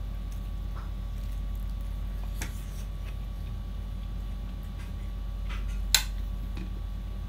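Eating-by-hand sounds: fingers mixing rice and food on a ceramic plate, with small scattered clicks and one sharp tap on the plate about six seconds in, over a steady low hum.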